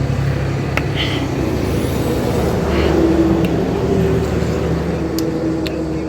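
A steady motor-vehicle engine drone with a slowly shifting pitch, and a few sharp clicks.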